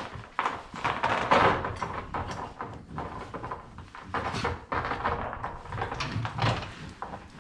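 Irregular knocks, clicks and rustling as the roof panel of a Can-Am Maverick X3 is unfastened and handled for removal.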